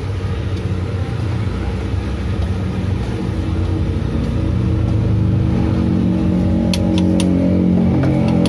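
Steady low engine rumble of a motor vehicle running close by, its pitched hum growing stronger about halfway through. Three light clinks near the end, from a spoon against the seasoning container.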